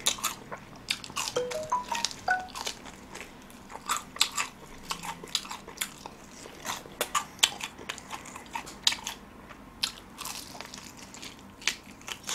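Close-miked crunching and chewing of extra-crispy deep-fried chicken, cut small and fried for maximum crispness: a run of irregular sharp crunches as the crust is bitten and chewed.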